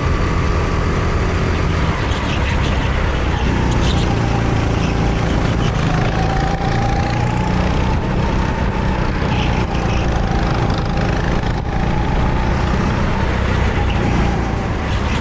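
CRG rental go-kart engine running hard on track, its pitch dipping and rising again with the revs, over a steady rush of noise.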